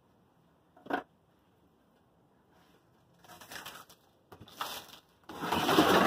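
One short knock about a second in, then rustling and crunching as the Calliandra bonsai forest is handled: foliage brushing and root-bound soil crumbling, loudest near the end.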